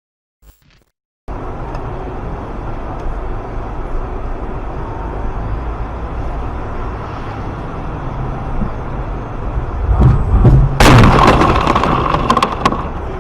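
After about a second of near silence, steady car driving noise, then about ten seconds in a loud car collision: a sudden crash that lasts about two seconds before the driving noise returns.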